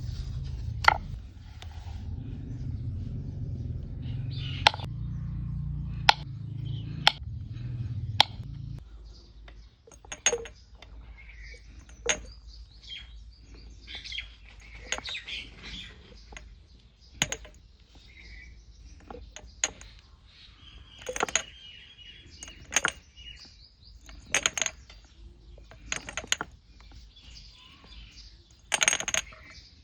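A series of sharp clicks and taps, irregularly spaced, with birds chirping in the background. A low rumble stops abruptly about nine seconds in.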